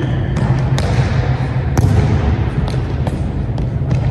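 Volleyball being played in a large gym: several sharp smacks of hands striking the ball, spaced about a second apart, over a steady low hum of the hall.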